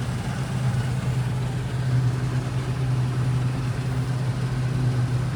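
Combine harvester running steadily at working speed while unloading grain, a constant low engine drone.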